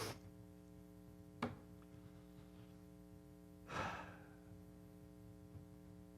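A man's breath or sigh into the microphone about four seconds in, over a steady low electrical hum, with a small click about a second and a half in.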